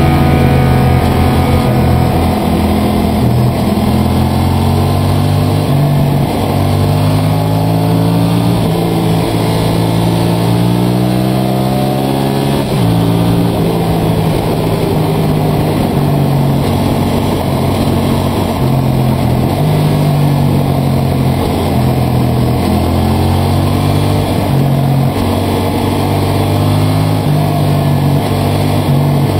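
Motorcycle engine running on the road. Its pitch climbs steadily for about twelve seconds as it accelerates, drops abruptly at a gear change, then runs on with smaller rises and falls in engine speed.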